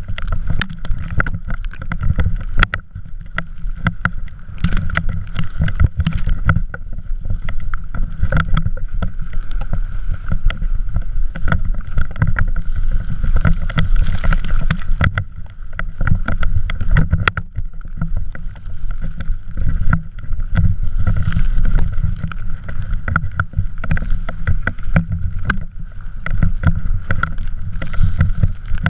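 Drift trike rolling and sliding over snow: a steady low rumble with a constant scraping hiss from the wheels, and frequent clicks and knocks of the trike rattling as it goes.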